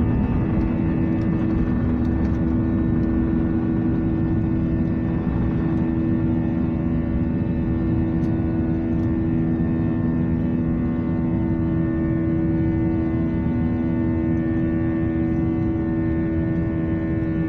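Jet airliner engines at takeoff thrust heard from inside the cabin: a loud, steady roar with a steady droning hum over it, through the end of the takeoff roll, lift-off and the first climb.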